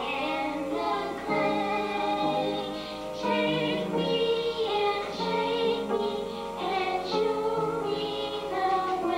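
Two young girls singing a song together, holding long notes that step from pitch to pitch.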